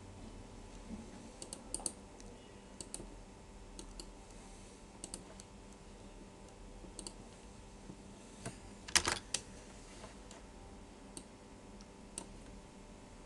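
Scattered clicks of a computer mouse and keyboard, singly and in pairs, with the loudest cluster about nine seconds in, over a faint steady hum.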